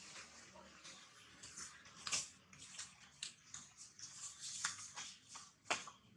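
Dry leaves rustling and crackling in short irregular bursts, with two sharper crackles about two seconds in and near the end.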